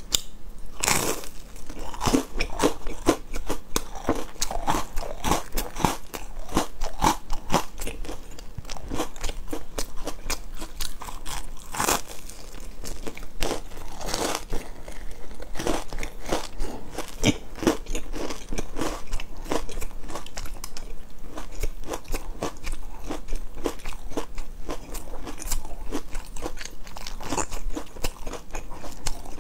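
A person biting and chewing pieces of a large crisp baked biscuit: a dense run of crunches and chewing, with a few louder bites.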